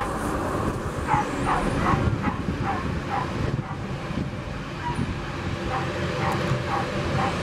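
Steady low rumble of an ATR turboprop airliner's engines as it taxis. Over it, a dog barks in quick short yaps: a run of them in the first few seconds, a pause, then another run near the end.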